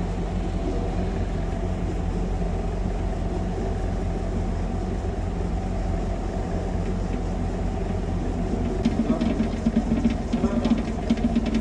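A steady machine hum made of several steady tones. About nine seconds in, a fast irregular clatter of clicks and rattles joins it.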